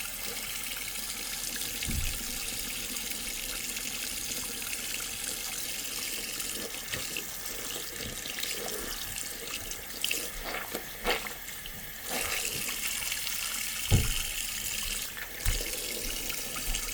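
Tap water running steadily into a sink while a screwdriver is washed of sticky tape residue, with a few low knocks from handling it.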